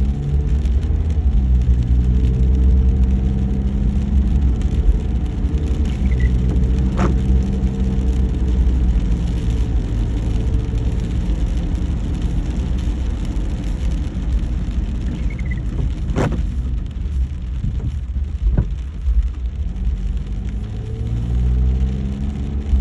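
Car driving, with a steady low road rumble and an engine hum that rises and falls in pitch as it speeds up and slows. A few sharp taps or clicks are heard three times over the rumble.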